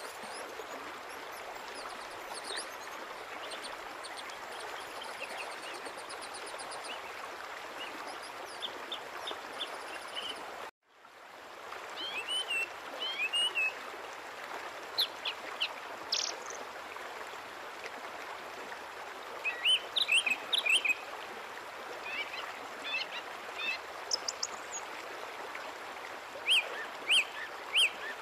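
A steady rushing noise with small birds chirping over it. About eleven seconds in the sound drops out for a moment, then surf washing onto a sandy beach carries on beneath louder, short bird chirps.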